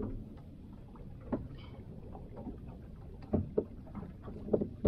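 Water lapping against a small boat's hull as it rocks at sea, with a few light knocks on board.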